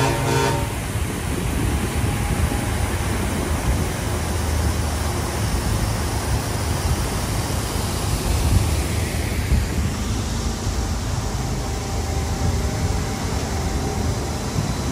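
Steady low rumble and hiss aboard the Disneyland Monorail Mark VII, with no single event standing out.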